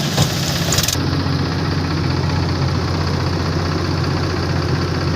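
Heavy diesel engine running steadily at low speed, an even low hum.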